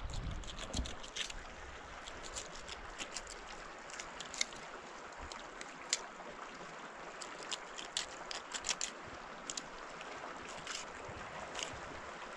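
Water lapping and trickling, with many small sharp splashes.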